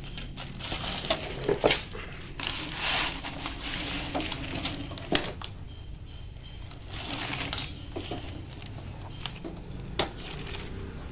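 Handling noises of a sheet-metal MIG welder being moved about: scattered knocks and clicks against its casing, with stretches of rustling. A sharp click near the end as the side-panel latch is worked.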